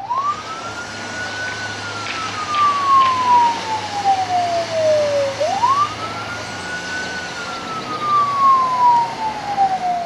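Police car siren wailing: twice it climbs quickly to a high pitch and then slides slowly down, over steady background noise.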